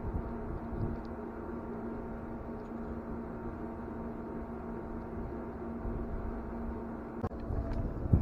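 Steady drone of shipboard machinery holding several fixed tones, with a sharp knock near the end.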